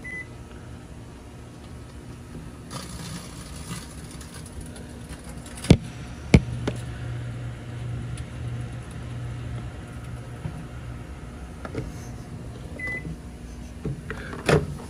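Microwave oven running with a steady low hum, a short keypad beep as it starts and another beep about thirteen seconds in. Two sharp clicks about six seconds in, and a click near the end.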